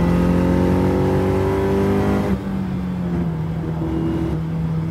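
Honda S2000 four-cylinder engine in an AE86 Corolla, heard from inside the cabin while driving. The engine note climbs steadily under throttle, then drops away abruptly a little over two seconds in and settles into a lower, steady drone. This is a road test after the differential rebuild.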